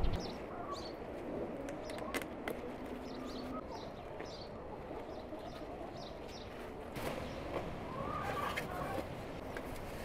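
Small garden birds chirping over and over, with a short low call about two and a half seconds in. A few sharp snaps and rustles come from okra plants being handled and picked.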